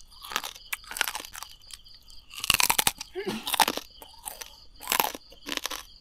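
Close-up crunching and chewing of crispy roast suckling-pig skin, in irregular bites, the loudest crunches about two and a half, three and a half and five seconds in. Crickets chirp faintly and steadily behind.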